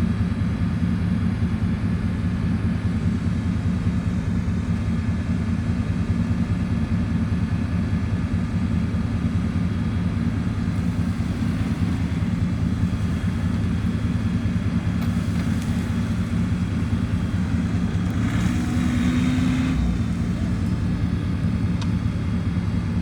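Engine idling steadily with a low, even hum. A brief rush of hissing noise comes about eighteen seconds in.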